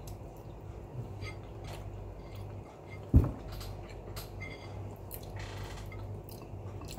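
A person chewing a mouthful of boiled potato, with faint small mouth clicks over a steady low hum, and a single short thump about three seconds in.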